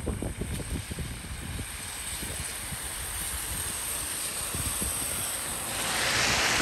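Road and wind noise from a vehicle driving, with gusty low buffeting on the microphone. A rushing hiss swells about six seconds in.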